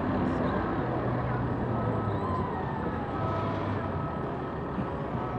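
Steady city traffic rumble with a low engine hum, heard across a park.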